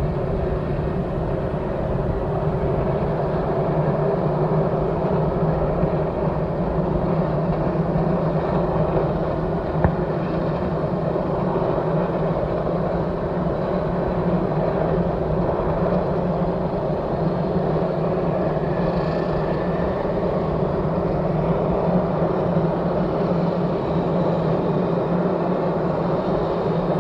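Air Tractor's turboprop engine running steadily on the ground, with an even low hum and no change in speed.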